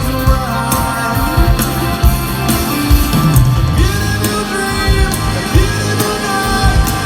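Live rock band playing: drums, bass and guitars with a singing voice, steady drum hits throughout.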